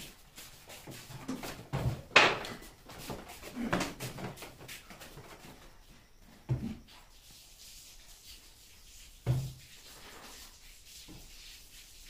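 A few scattered knocks and thumps, the loudest about two seconds in, with quieter ones near four, six and a half and nine seconds in.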